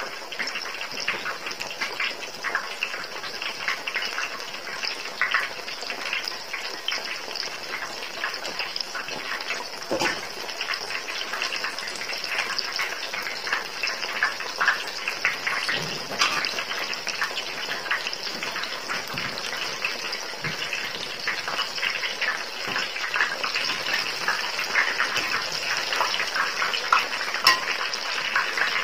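Batter-coated ripe nendran banana halves deep-frying in hot oil in a steel pot: a steady sizzle with dense, fast crackling pops.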